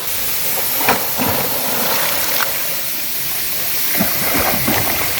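Waterfall rushing steadily, a constant hiss of falling water, with a couple of brief sharp knocks about one and two and a half seconds in.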